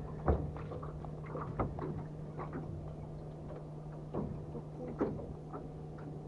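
Scattered light knocks and taps of gear being handled in a small fishing boat, over a steady low hum.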